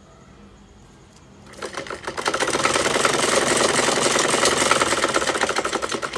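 Usha sewing machine stitching: a rapid, even clatter of the needle mechanism that starts about a second and a half in, builds up to full speed and stops near the end.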